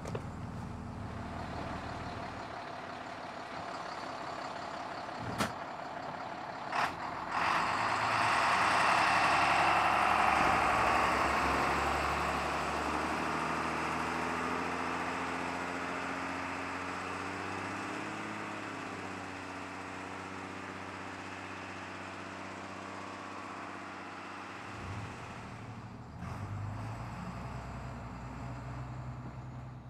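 School bus engine running steadily. Two sharp clicks come at about 5 and 7 seconds, then a long, loud hiss of air about 8 seconds in, and the engine note shifts as the bus moves off.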